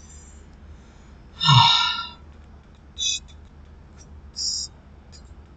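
A man's short, low, wordless vocal sound, falling in pitch, about a second and a half in, followed by a few brief high ticks.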